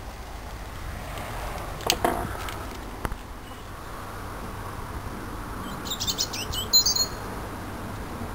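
A small bird chirping a quick run of high notes about six seconds in, over a steady low outdoor rumble. Short knocks come about two and three seconds in.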